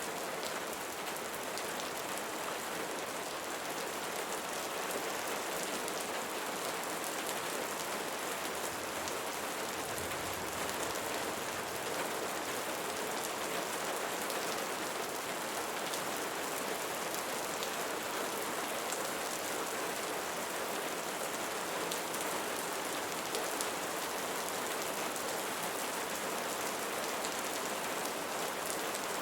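Steady rain falling on a surface, a dense even hiss with many fine individual drop patters.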